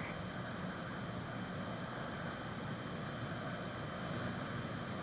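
Steady room tone: an even hum and hiss of room air handling, with no distinct events.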